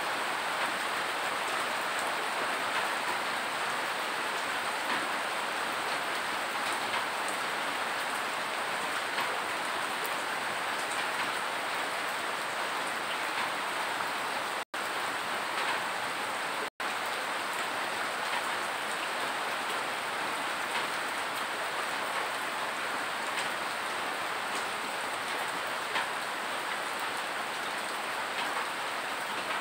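Steady rain falling, a constant hiss with many small drops ticking through it. The sound cuts out completely twice for a split second, about halfway through.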